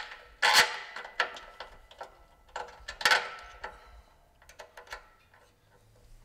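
Small metal hardware clinking and clattering as bolts, washers and nuts are set into a steel mounting bracket by hand. The two loudest clatters come about half a second in and about three seconds in, followed by a few lighter ticks.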